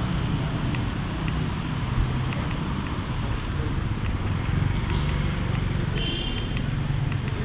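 City street traffic: motor vehicle engines running steadily close by over a constant street hum, with a short high-pitched tone about six seconds in.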